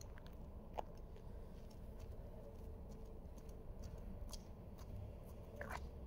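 Burning fuse of a 38 mm single-shot firework: faint crackles and soft clicks over low background noise, with one sharper click about a second in and a short crackle near the end.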